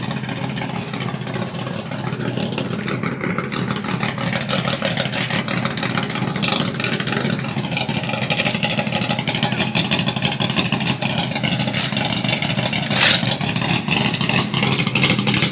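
Big-block 496 cubic-inch V8 of a pickup running at high revs through a burnout, a steady, sustained engine note that grows slowly louder. A brief sharp crack sounds near the end.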